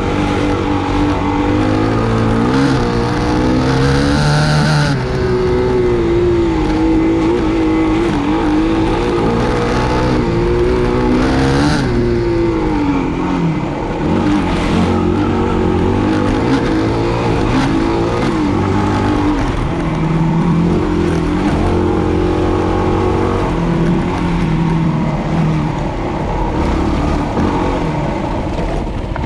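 Yamaha WR250R dual-sport motorcycle's single-cylinder four-stroke engine running continuously, its pitch rising and falling as the throttle is opened and closed on a trail ride. There are short bursts of hiss about four seconds and about twelve seconds in.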